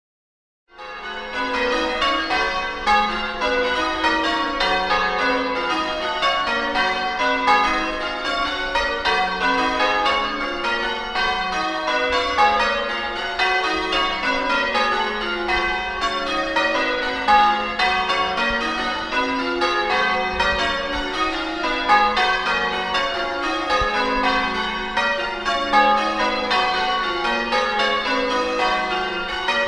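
Church bells heard close up, struck one after another in quick, unbroken succession, starting about a second in.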